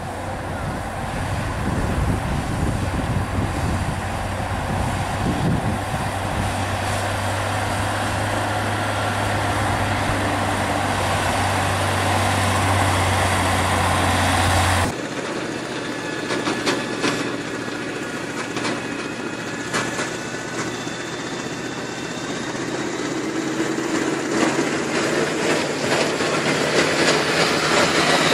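Heavy diesel engine of a motor grader running steadily under load while its blade pushes deep snow. About halfway the sound changes abruptly to another snow-clearing vehicle running, with scattered clicks and knocks, and it grows louder near the end.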